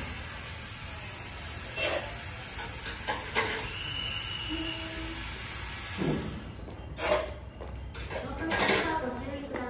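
Steady air hiss from the 285-series Sunrise sleeper train as its front gangway door opens, cutting off about six and a half seconds in, with a few light metallic knocks.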